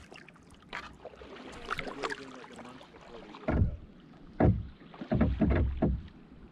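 Kayak paddle strokes in calm river water: soft dipping and dripping, then a run of four or five louder splashing strokes about halfway through.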